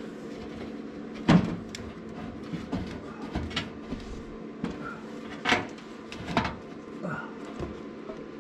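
Irregular metallic clinks and knocks of a hand tool working deep in an engine bay, the loudest just over a second in, as pliers are worked at a broken head bolt in the LS engine's cylinder head, with a steady hum underneath.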